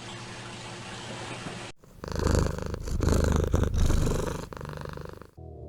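Domestic cat purring loudly and close up, a fast, rough pulsing that starts about two seconds in after a short stretch of even hiss. It stops abruptly near the end as music comes in.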